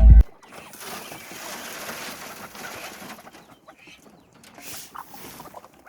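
Background music cuts off just after the start, leaving faint calls of farmyard birds over a steady hiss that fades after about three seconds.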